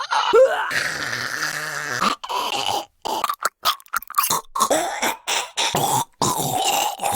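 A voice making choking and gagging noises: a strained rising cry, a long gurgling gag, then a string of short coughs and retches broken by abrupt silences.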